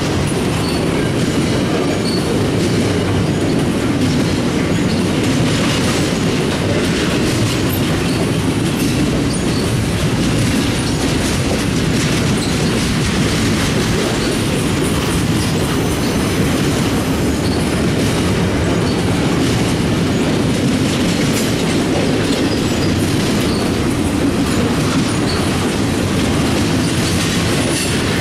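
Double-stack intermodal container well cars rolling past at close range: a steady rumble of steel wheels on rail, with clickety-clack over the rail joints.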